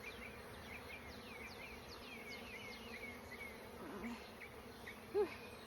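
Honeybees buzzing around an open hive during an inspection, a steady drone of many bees.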